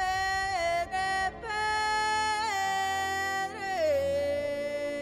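Film-trailer music: a solo voice singing long held notes with small ornamental bends between them, over a low drone. About four seconds in the voice slides down to a lower held note.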